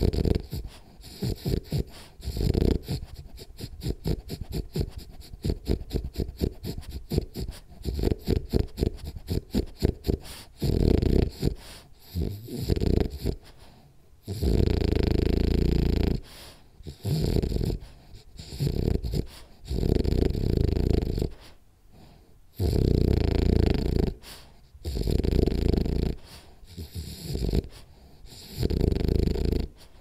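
A sleeping French bulldog snoring and breathing through its nose. For the first half it takes quick, fluttering breaths, several a second. From about halfway it settles into long, loud snores every two to three seconds.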